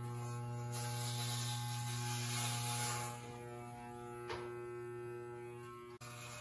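Corded electric hair clippers buzzing steadily while cutting hair. The buzz is louder for about the first three seconds, then drops to a quieter hum, with one short click a little after four seconds.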